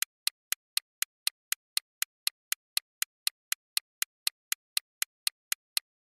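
Clock-ticking sound effect for a quiz countdown timer: sharp, evenly spaced ticks about four a second, marking the time left to answer, which stop shortly before the end.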